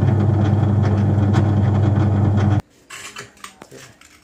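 LG top-loading washing machine's drive motor running with a loud, steady hum, cutting off suddenly about two and a half seconds in. The motor runs but the tub will not spin, which the technician puts down to a worn-out gear set.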